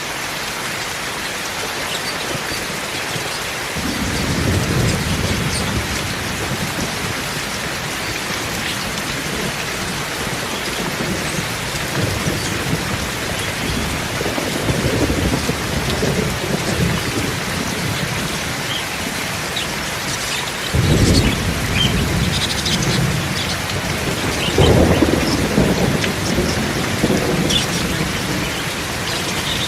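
Steady rain falling, with low rolls of thunder rumbling in about four seconds in and again around a third of the way in and near the two-thirds mark.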